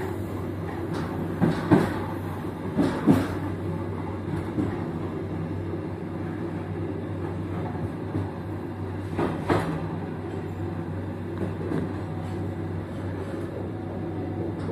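Argo Cheribon passenger train running on the rails: a steady low rumble with a few sharp wheel clacks, the loudest about two and three seconds in and another near ten seconds.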